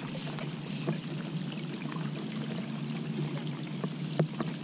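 Steady rain falling on the water around a kayak, an even hiss, with two brief higher hisses about half a second apart near the start and a sharp click near the end.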